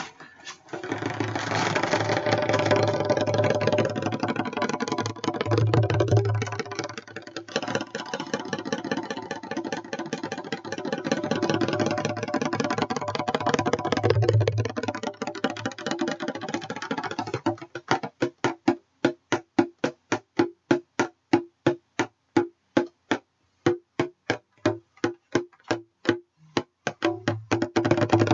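A bongo drum played by hand: a fast, continuous roll of rapid strikes, breaking about two-thirds through into separate single hits at about four a second, with the fast roll resuming near the end.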